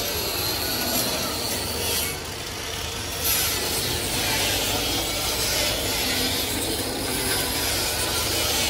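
Steady rubbing and scraping as a small metal part is worked by hand, with a brief lull about two seconds in.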